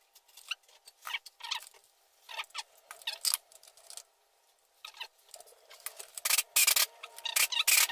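Irregular metallic clicks, taps and light rattles of hand tools and parts being handled on a Suzuki Cappuccino gearbox during reassembly. They come in short clusters, with a denser run of quick clicks near the end.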